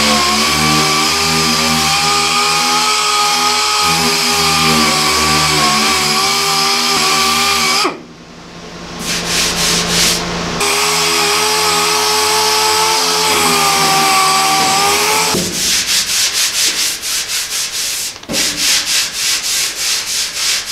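A dual-action (DA) sander running with a steady whine on the primed sheet-metal side of a Model A pickup bed, smoothing down hammered-out dents around the wheel well. It stops about eight seconds in, winds back up, and runs again until about fifteen seconds in, followed by quick, even rubbing strokes on the panel.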